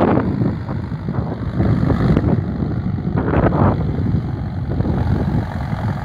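Mahindra Arjun Novo tractor's diesel engine running steadily while pulling a harrow.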